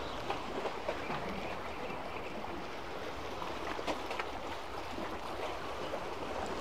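Sea water washing steadily among concrete breakwater tetrapods, with a few faint ticks.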